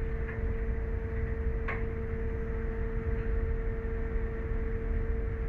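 Ship's machinery on a docking ferry: a steady low rumble with a steady humming tone over it, and one sharp click a little under two seconds in.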